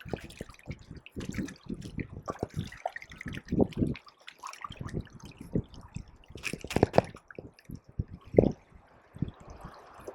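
Seawater splashing and trickling at the shoreline, with irregular drips and slaps; the loudest slaps come around a third of the way in, just past the middle, and near the end.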